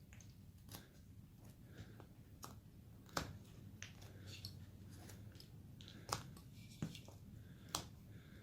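A carving blade cutting into basswood by hand, giving short sharp clicks as slivers are sliced off, at irregular intervals, the loudest about three seconds in, over a faint low hum.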